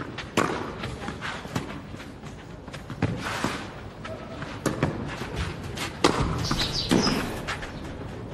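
Tennis rally on a clay court: rackets strike the ball back and forth, a sharp pop about every one to one and a half seconds.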